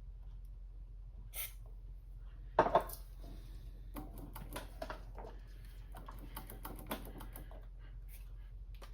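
Small irregular clicks of the watt meter's rotary switch being worked back and forth through its detent stops after DeoxIT cleaning, with one sharper knock about a third of the way in.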